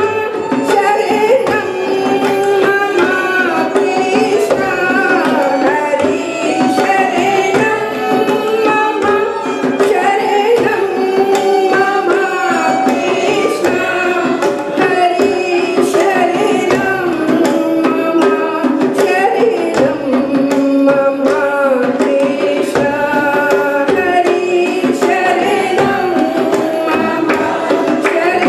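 A group singing a Hindu devotional song (bhajan) to Krishna, with steady tabla accompaniment throughout.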